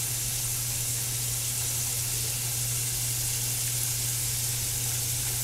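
Water sizzling and hissing steadily in a very hot skillet as the pan is deglazed and stirred. A steady low hum runs underneath.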